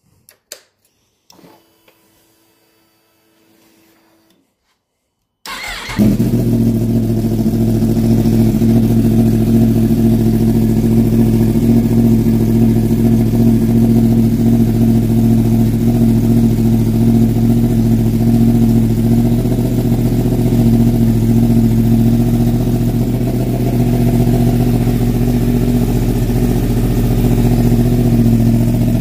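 After a faint hum, the 2022 Yamaha R1's inline-four cranks briefly and catches about five and a half seconds in, then idles steadily through the M4 mid-pipe and stock muffler.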